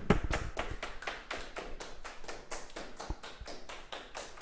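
Rapid, even tapping, about six sharp taps a second, slowly getting fainter, then cut off abruptly at the end.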